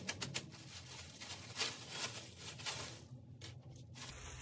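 Clear plastic wrapping crinkling and rustling as it is handled and pulled open. There is a quick run of sharp crackles at the start, then steadier rustling with a short lull about three seconds in.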